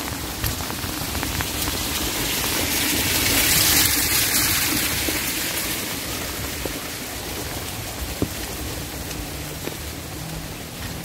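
Steady rainfall, with scattered sharp ticks of single drops landing close by. The hiss of the rain swells to its loudest about four seconds in, then eases back.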